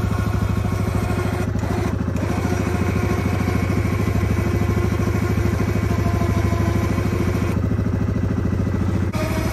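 Yamaha ATV engine idling steadily with an even, rapid pulse, the machine sitting under load as its winch hauls a tipped snowmobile up the slope.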